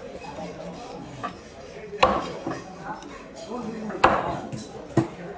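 A knife chopping into a large trevally on a cutting block: several sharp chops a second or two apart, the loudest about four seconds in.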